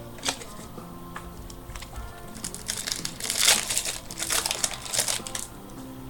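Trading-card pack wrapper crinkling and crumpling in the hands, in a dense run from about two and a half to five and a half seconds in, with a sharp click just after the start. Background music plays underneath.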